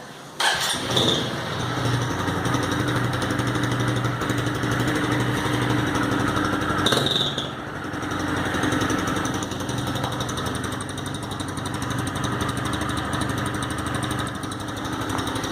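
Honda Titan 150 EX motorcycle's single-cylinder four-stroke engine starting about half a second in and idling through an aftermarket ML Competition competition exhaust pipe. It is revved briefly about seven seconds in.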